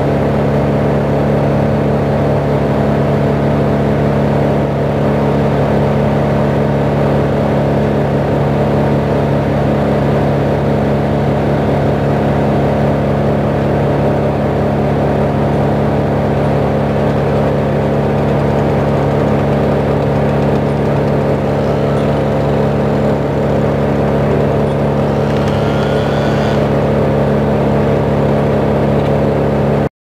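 Crane truck's engine running steadily at a constant speed while the crane works.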